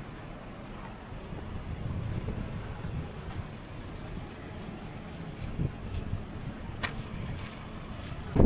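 Low, steady outdoor rumble with a few sharp clicks in the second half.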